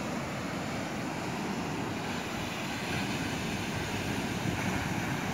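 Sea surf washing onto a sandy beach, a steady rush of noise, with wind buffeting the microphone.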